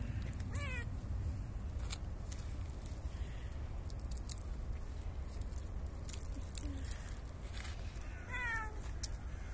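A cat meowing twice, short calls about half a second in and again near the end, over a steady low rumble with scattered sharp clicks.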